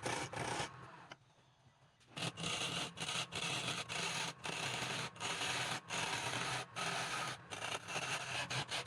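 Abrasive rubbing against a workpiece spinning on a wood lathe, over the lathe motor's low hum. It drops away about a second in and picks up again a second later, with short breaks.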